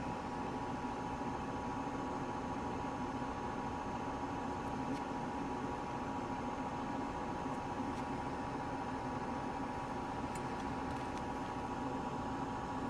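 Steady background hum and hiss, like a fan or room ventilation, with a few faint clicks.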